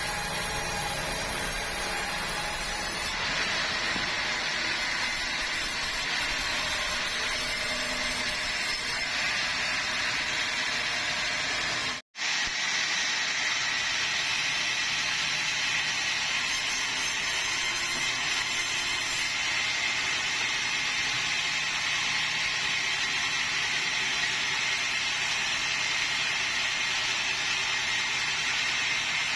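Sawmill saw running steadily, a constant mechanical noise with a thin high whine, while sawing bengkirai hardwood into beams. The sound cuts out for a split second about twelve seconds in.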